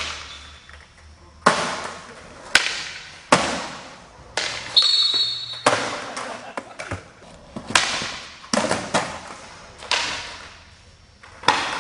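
Skateboard popping and landing on a smooth concrete floor: about ten sharp cracks and slaps, each followed by a ringing echo of a large hall.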